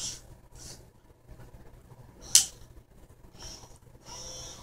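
Small gear motors of a kit robotic arm whirring in short bursts as its gripper is lowered onto a ball, with one sharp click a little past the middle.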